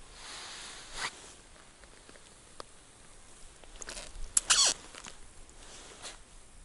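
Handling sounds while landing a small perch through a hole in the ice: rustling of winter clothing and crunching snow, with short scraping sounds, loudest in a quick cluster about four and a half seconds in.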